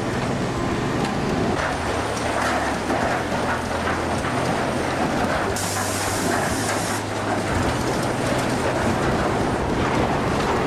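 Sawmill machinery running steadily while cutting logs: a low machine hum under dense rattling and clattering, with a brief high hiss about six seconds in.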